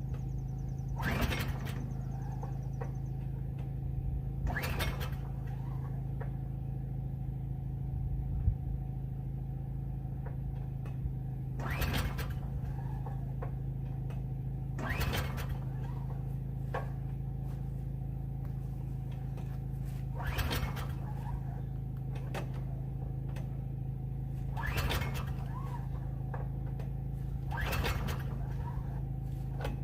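Subaru small engine on a sawmill being pull-started with the choke on: about seven separate cranking attempts a few seconds apart, and it does not catch. A steady low hum runs underneath.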